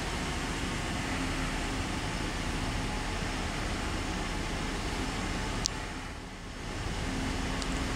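Steady hiss with a low hum, with one sharp click about five and a half seconds in and a brief dip in level just after.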